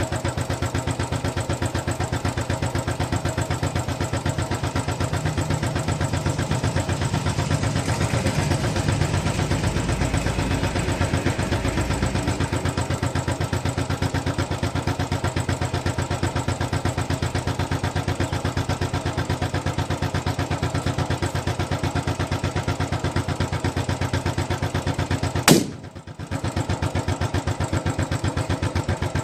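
Royal Enfield Bullet's single-cylinder engine idling with a steady, even beat. Near the end it fires one sharp 'pataka' backfire bang from the exhaust, and the running dips for a moment before settling back.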